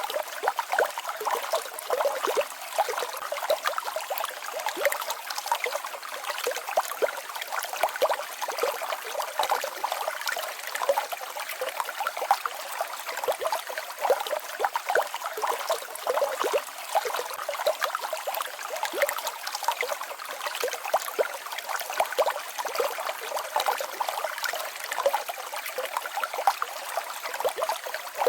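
A small mountain stream babbling and trickling over a small waterfall: continuous, with many small splashes and no deep rumble.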